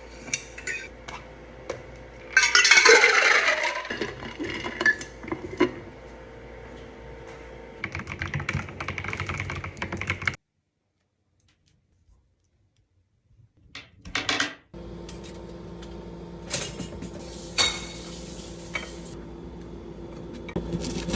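Clinks and clatter of dishes and cutlery in short bursts, with a louder noisy rush a few seconds in. The sound drops out for about four seconds around the middle, then the clinks return over a steady low hum.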